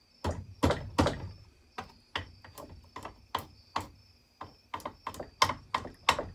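Hammer tapping a washer along the groove of a chainsaw bar, metal on metal, to spread pinched bar rails. More than a dozen sharp taps at uneven spacing, the hardest blows in the first second.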